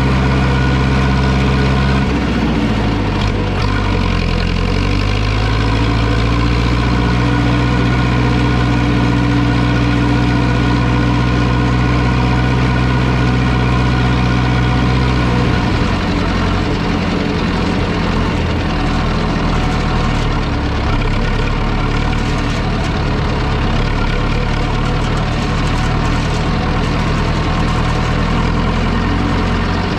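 Zetor 6245 tractor's diesel engine running steadily, its note dipping and recovering a few seconds in. About halfway through the even drone turns rougher and less regular.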